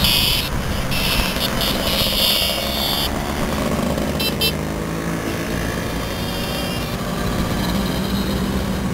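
A column of Vespa scooters riding past one after another, their small engines buzzing. Horns beep on and off over the first three seconds, with a quick double beep about four seconds in.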